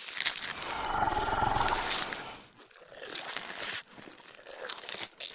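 Dinosaur roar sound effect: a long, loud roar lasting about two seconds, followed by two quieter, shorter growling calls.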